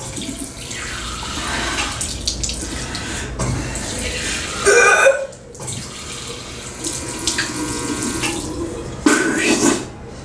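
Water running steadily in a tiled restroom. Two short, louder pitched sounds break in, about halfway through and again near the end.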